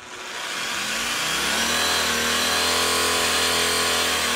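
Model tugboat's electric drive motor spinning its propeller with the boat out of the water. The whine rises in pitch over the first second or so as it spins up, then holds steady.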